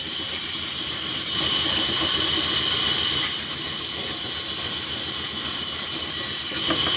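Power saw cutting through wood, a steady high-pitched hiss of the blade in the cut that grows louder for a couple of seconds after about a second in and again near the end.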